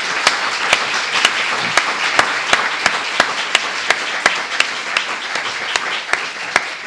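Audience applauding: a dense patter of many hands clapping, with one nearby pair of hands standing out in sharp, even claps about three times a second. The applause starts to fade at the very end.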